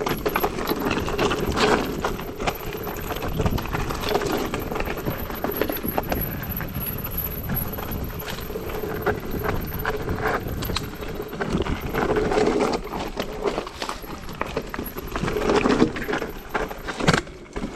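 Mountain bike clattering and rattling as it rolls over a rough, rocky trail, with many irregular knocks.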